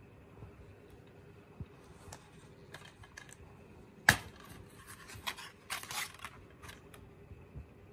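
Plastic DVD case being handled and opened: light scraping and rubbing, a single sharp snap about four seconds in as the case comes open, then a quick run of plastic clicks and scrapes as a hand works at the disc in its tray.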